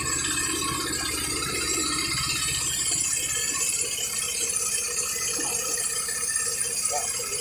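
Engine-driven rice threshing machine running, a steady fast rattle as harvested rice is fed into its drum.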